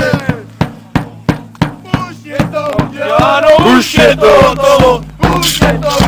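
A group of football supporters chanting and shouting together to quick beats on a bass drum struck with a mallet; the chanting grows louder about halfway through.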